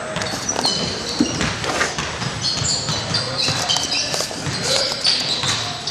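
Gym ambience: scattered voices, sneakers squeaking in short high chirps on the hardwood court, and occasional knocks.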